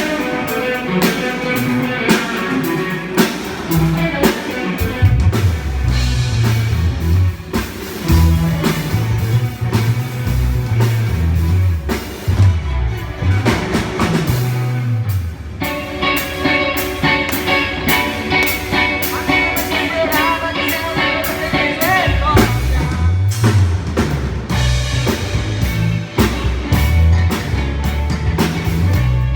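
A band playing a rock-style piece on drum kit, bass and guitar, with a steady drum beat under low bass notes that move in steps. About halfway through, a higher sustained melody line with a waver comes in over the band.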